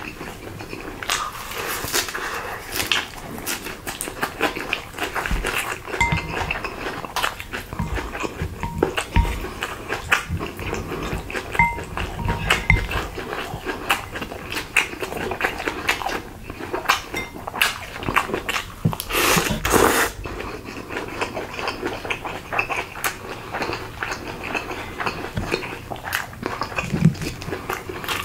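Close-miked eating sounds: chewing and mouth noises, a dense run of small clicks with one longer noisy stretch a little over two-thirds of the way through.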